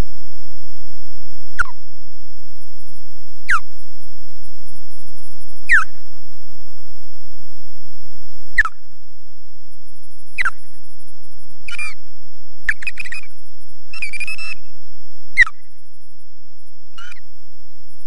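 Osprey giving alarm calls while defending its nest against an intruder: sharp, downward-sliding whistled notes repeated about every two seconds, with a few longer, wavering calls just past the middle.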